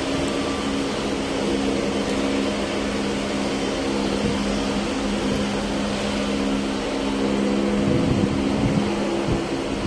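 Steady mechanical hum of a machine running, a constant drone with a few held tones, with faint low knocks near the end.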